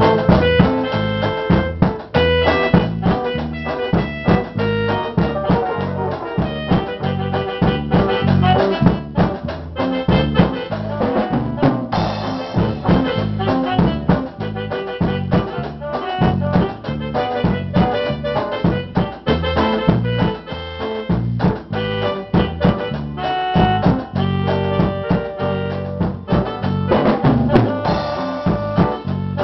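A small band playing live: guitar and drum kit with brass, the drums keeping a busy steady rhythm under held horn and guitar notes.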